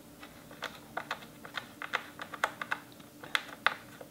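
Small, irregular clicks and ticks of a screwdriver and small screws being worked on the metal bracket inside an opened iMac, a few a second, over a faint steady hum.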